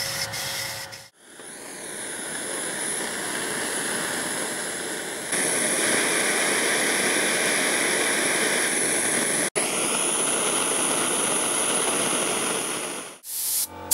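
A hand-held gas torch burning with a steady hiss as it heats a small steel part for oil blackening; the hiss gets louder about five seconds in. In the first second, a wood lathe turns a wooden handle under a hand chisel.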